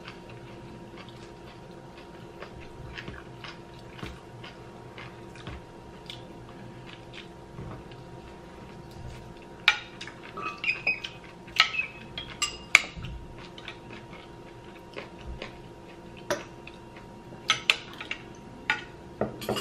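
Metal spoons clinking and scraping against a glass baking dish as food is scooped out, in scattered sharp clicks that come in quick clusters about halfway through and again near the end. A faint steady hum runs underneath.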